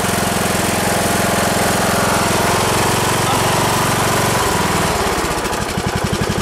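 A 17.5 HP, 502 cc single-cylinder Briggs & Stratton engine on a Troy-Bilt riding mower running steadily. About four and a half seconds in it drops to a slower speed with a distinct chugging beat.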